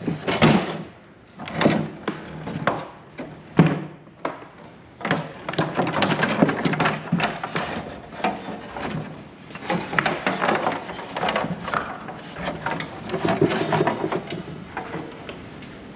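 Irregular knocking, clattering and scraping of metal parts and hand tools as a Ryobi table saw is taken apart by hand.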